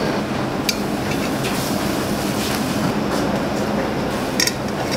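Steady rushing kitchen background noise with a low hum underneath, and two light clicks, one just under a second in and one near the end.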